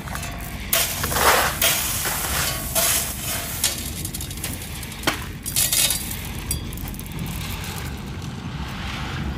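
Gravel chips being scooped and tipped into a plastic pan: several irregular rattling, crunching bursts of stones in the first six seconds, then only a steady low background noise.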